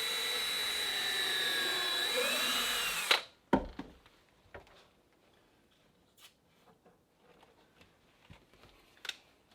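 A handheld power drill runs steadily with a high whine for about three seconds, then stops. A sharp knock follows about half a second later, then a few faint knocks and clicks.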